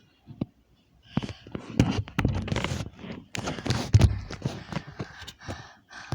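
A dense run of knocks, clatter and thumps from handling hard objects, starting about a second in and dying away near the end, with the heaviest thumps around the middle.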